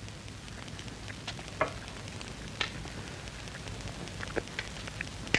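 Soft, scattered clinks and scrapes of a knife and fork on a plate during a meal, over a faint crackling background.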